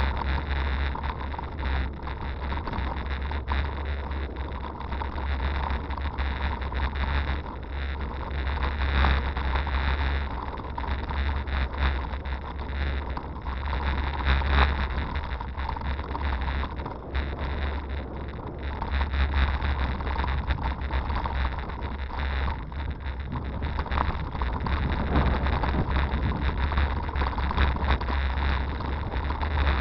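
Wind rumble on the microphone of a camera riding on a hybrid bicycle as it rolls along a gravel towpath, with tyre noise and frequent jolts from bumps in the path.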